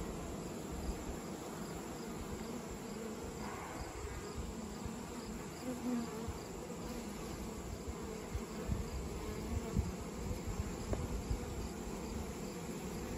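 Many honeybees buzzing together, a steady hum from a large cluster of bees and the bees flying around it.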